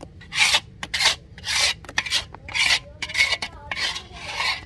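A spoon scraping against a karahi (wok) in about eight rasping strokes, roughly two a second, as the thick semolina barfi mixture is pushed out and poured into a steel tray.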